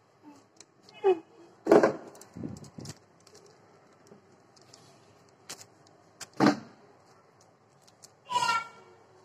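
Clear plastic bag crinkling and rustling as gloved hands press and smooth cookie dough flat inside it, with a few short squeaks of plastic rubbed under the fingers.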